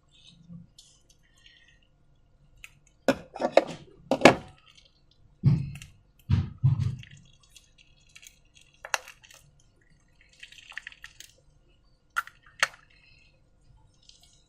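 Slime-making materials being handled: a run of short clicks, clinks and wet, squelchy thuds, loudest from about three to seven seconds in, with a couple more sharp clicks near the end.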